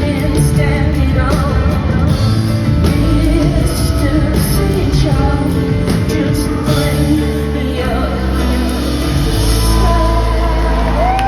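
Live pop-rock band music with a woman singing over it; near the end she holds a long note.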